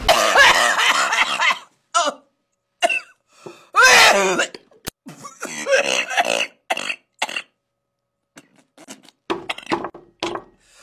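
A woman gagging and coughing in a string of short, loud vocal bursts, with noodles spilling from her mouth.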